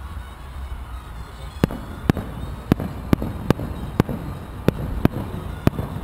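Distant aerial fireworks shells bursting: a string of about nine sharp bangs, roughly two a second, starting about a second and a half in.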